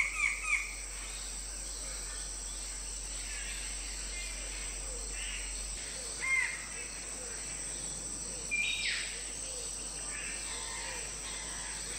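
Rainforest ambience: a steady high insect drone with scattered bird calls. A quick run of repeated chirps stops just after the start, a short call comes about six seconds in, and a louder call sweeps up about nine seconds in.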